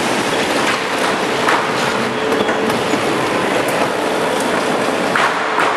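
Core veneer composer machine running: a steady mechanical clatter from its chain conveyors and jointing mechanism, with irregular clacks and a couple of short hisses.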